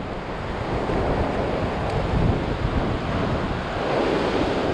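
Sea waves surging and washing over a rock ledge, with wind on the microphone.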